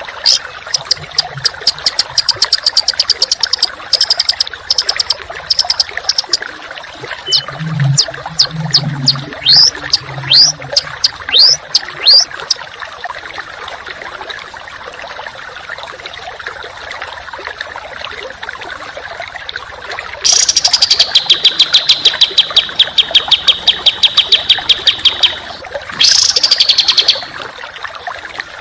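A small songbird giving rapid series of sharp high chips and downward-sweeping whistled notes, then a long, fast, harsh rattling trill, in a dense 'tembakan' burst style of song, over a steady background hiss.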